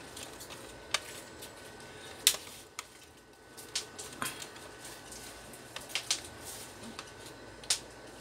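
Scattered sharp plastic clicks and taps, about eight in all, as hands press around the laptop's plastic screen bezel, snapping it onto the lid.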